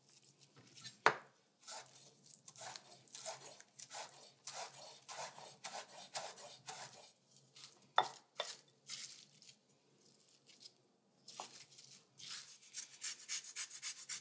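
Chef's knife chopping fresh basil on a wooden cutting board, a run of quick cuts. Then a wooden spoon tossing salad in a glass bowl with a few knocks, and near the end fast rasping strokes of a lemon being zested on a fine grater.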